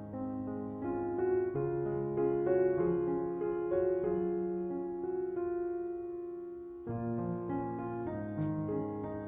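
Instrumental piano music: gentle sustained chords and melody notes, with a new phrase starting about seven seconds in.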